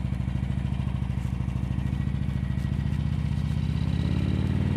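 Harley-Davidson Sportster 883's air-cooled V-twin engine running steadily while the motorcycle cruises on the open road, heard from on board.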